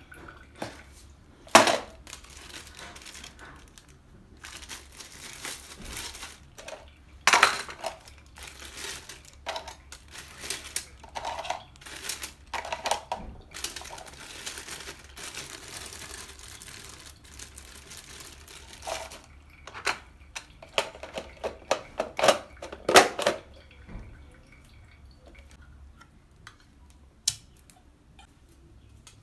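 Irregular kitchen clatter and knocks with some rustling, from a plastic bowl of shredded cabbage and carrot and a manual vegetable chopper being handled during salad preparation.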